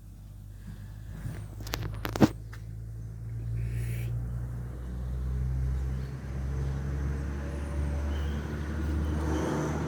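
A motor engine running with a steady low hum that grows louder over the first few seconds. A few sharp clicks come about two seconds in.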